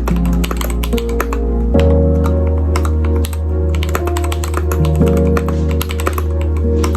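Typing on a stock Royal Kludge RK61 mechanical keyboard: a quick, irregular run of keystroke clacks, heard over background music with a steady bass line.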